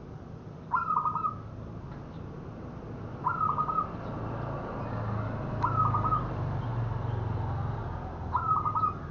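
Local zebra dove (perkutut) cooing: four short coos, each a quick run of a few stuttering notes, repeated about every two and a half seconds.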